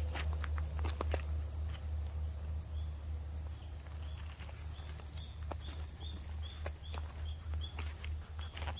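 Insects buzzing steadily in one high, thin tone, with a run of short repeated chirps through the middle, over a steady low rumble. Footsteps on a path sound in the first second or so.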